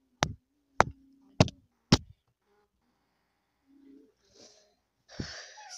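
Four sharp knocks evenly spaced about half a second apart, then a single fainter knock about five seconds in.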